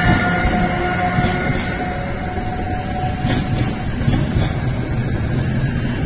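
Siemens Vectron electric locomotive passing with a steady whine that fades out about halfway through, then passenger coaches rolling by with wheel-on-rail noise and a few brief high clicks.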